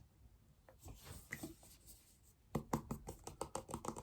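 A few scattered light clicks, then from a little past halfway a quick run of sharp knocks or taps, about six a second.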